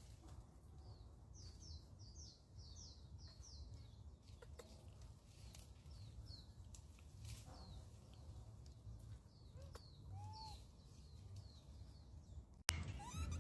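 Faint, high, short falling chirps: a quick run of about eight in the first few seconds, then scattered single ones, with one lower arched call at about ten seconds. A sharp click near the end, after which the background jumps louder.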